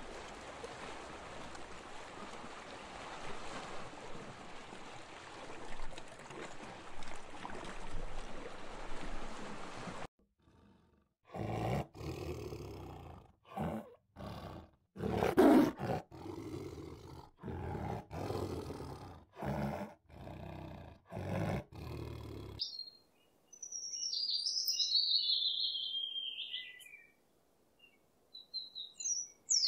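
A steady hiss for the first ten seconds. Then a tiger roars and growls over and over, roughly once a second. Near the end a bird gives a high call.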